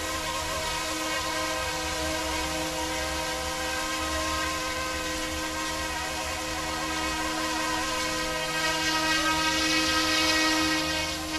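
UXIANG F09-S electric RC scale UH-60 Black Hawk helicopter in flight: the steady, high-pitched whine of its motors and rotors. It gets louder about eight seconds in as the helicopter comes close, then drops back near the end.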